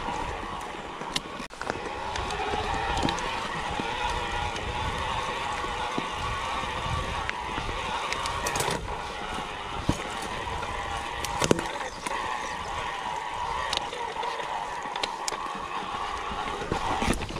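Mountain bike ridden over a rough dirt and rock trail: steady tyre and drivetrain noise, with sharp knocks and rattles as the bike hits rocks.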